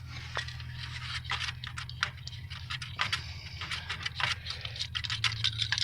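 Scattered light clicks and taps of hand tools and parts being handled, over a steady low hum.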